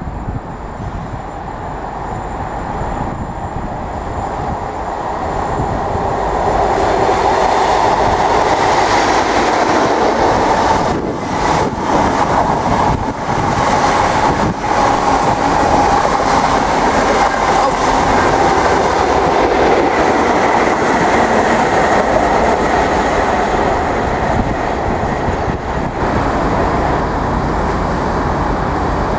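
High Speed Train (Class 43 diesel power car with Mk3 coaches) approaching and passing at speed: the engine grows louder over the first several seconds, then the coaches run past with wheels rumbling and clattering over the rail joints. About three seconds before the end the sound changes to an electric multiple-unit train running in.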